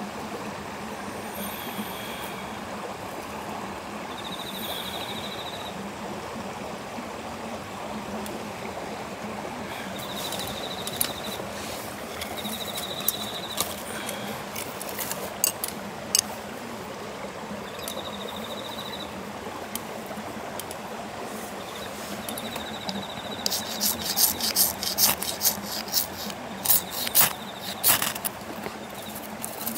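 A ferrocerium rod scraped hard with a striker in a quick series of rasping strokes a few seconds before the end, throwing sparks into a wood-shaving tinder bundle. Earlier there are a few scattered light clicks. Behind it all runs a steady outdoor hiss, with a short high trill repeating every few seconds.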